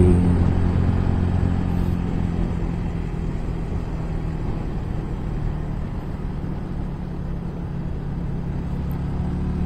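Old Yamaha Vixion's single-cylinder four-stroke engine running at a steady pace under load on a long uphill climb, a steady low engine note with road noise.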